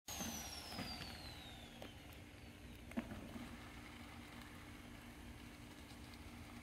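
Faint steady mechanical hum, with a high tone falling in pitch over the first two seconds and a single sharp click about three seconds in.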